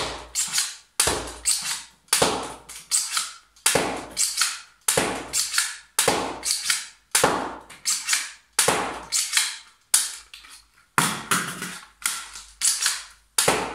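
3D-printed spring-powered blaster pistol being primed and fired over and over: a steady run of sharp plastic clacks, about two a second, often in close pairs.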